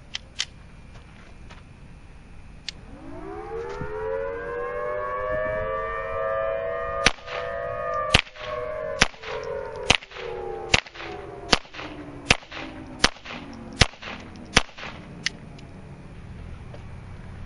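Ruger Mark I .22 Long Rifle semi-automatic pistol firing a steady string of about ten sharp shots, roughly one every 0.8 seconds, after a couple of small handling clicks. Under the shots an outdoor warning siren winds up about three seconds in, holds, and slowly winds down.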